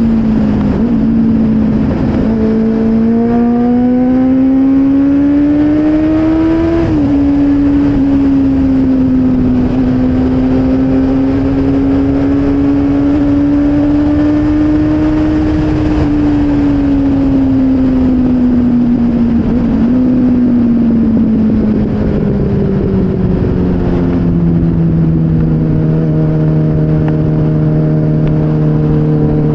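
Motorcycle engine heard from onboard over wind and road noise. It pulls up through the revs for several seconds, then drops sharply at a gear change about seven seconds in. It holds a steady cruise, eases off through the second half, and settles at low, steady revs near the end.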